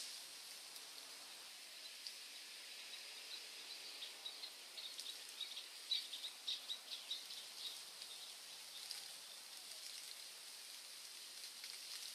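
A bird giving a quick run of short, high chirps from about four to seven seconds in, over a faint steady hiss of forest ambience.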